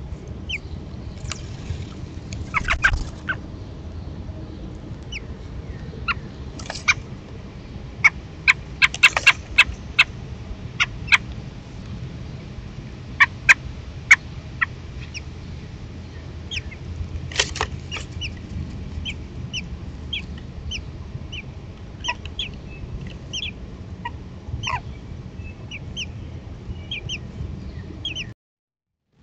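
American robins at the nest, with a run of short, high chirps and peeps and scattered sharp clicks and rustles as the adults bring food. The chirps come several a second in the second half over a steady low hum, and the sound cuts off suddenly near the end.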